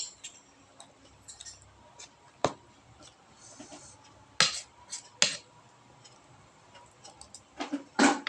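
Close-up mukbang eating sounds: scattered sharp crunches and clicks of a meal of rice, tempe and kerupuk crackers being eaten. The loudest come about four and a half and five seconds in, and again near the end.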